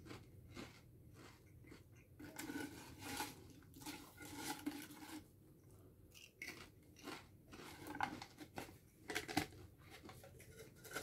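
Chewing and crunching of Pringles Scorchin' cheddar stacked potato chips, which are a little stale. There is a run of irregular crunches, with a new chip bitten partway through.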